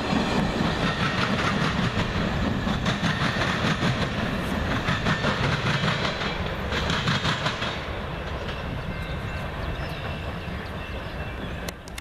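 Amtrak passenger train's last cars rolling by, steel wheels clacking rhythmically over rail joints over a steady rumble. The sound drops away about two-thirds of the way through as the train draws off into the distance.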